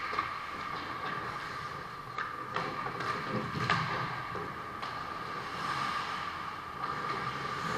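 Ice hockey skates scraping on rink ice with a few sharp clacks of sticks and puck, over a steady hum.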